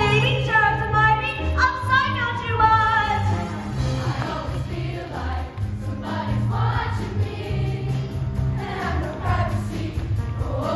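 Show choir performing with a pop backing track: a single singer over a steady bass line, then about four seconds in a beat comes in and the full choir sings together.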